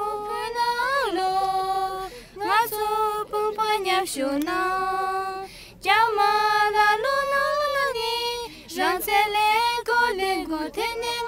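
Two Tibetan nuns singing a Tibetan song without accompaniment, one melody with long held and gliding notes. It breaks off briefly about two seconds in and again near six seconds.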